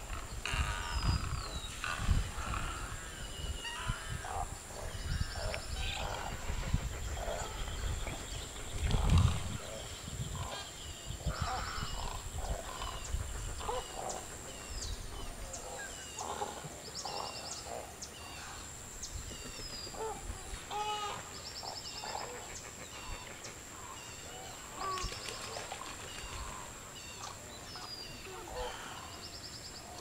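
A chorus of wetland birds calling: many short chirps, squawks, down-slurred whistles and buzzy trills overlapping. Low rumbles come and go through the first third.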